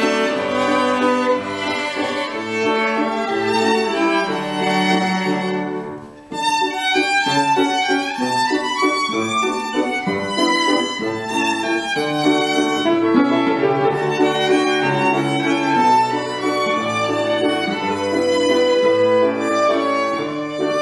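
Two violins, cello and piano playing together in a chamber-music arrangement. The music breaks off briefly about six seconds in, then carries on.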